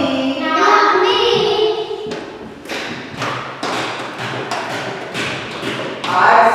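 A group of young girls singing together, breaking off after about two seconds for a run of steady, evenly spaced stamps on a hard floor, about two a second. The singing starts again near the end.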